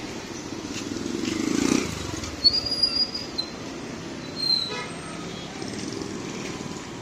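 Busy street traffic ambience: a motor vehicle swells past close by, loudest just under two seconds in, followed by a few sharp clicks and two short high squeaks.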